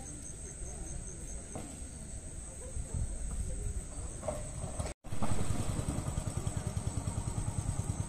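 A steady high insect drone over a low rumble. After a brief dropout about five seconds in, an even low throbbing starts, about seven pulses a second, like a small engine running.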